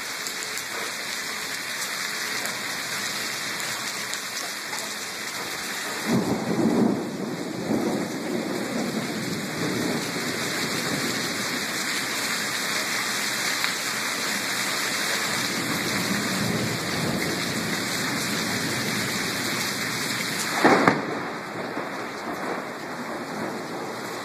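Heavy rain pouring down steadily during a thunderstorm. Thunder rumbles about six seconds in, and a short, sharp clap, the loudest sound, comes about three seconds before the end.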